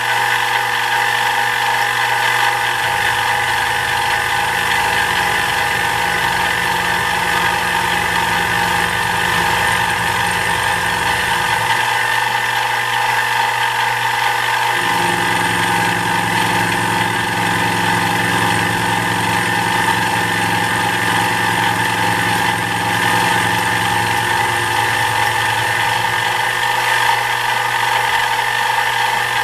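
Benchtop milling machine running steadily with a motor whine as a coated end mill cuts a metal workpiece. A deeper rumble comes in twice, each time for about nine seconds.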